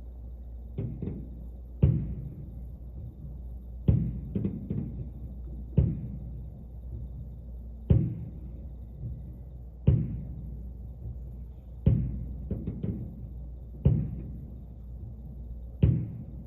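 Fireworks going off: a deep, muffled boom about every two seconds, several followed by a quick cluster of smaller thuds, over a steady low hum.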